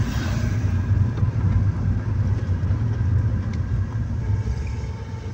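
Steady low rumble of the moving car's engine and tyres heard from inside the cabin, easing off a little near the end.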